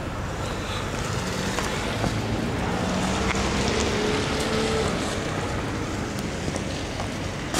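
Road traffic on a wet street: a steady tyre rush, with a low hum from a passing car that rises slightly from about a second in and fades by about five seconds.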